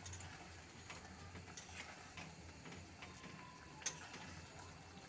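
Metal ladle stirring thick curry gravy in a metal kadai: faint scraping and a few light clicks against the pan, with one sharper clink about four seconds in.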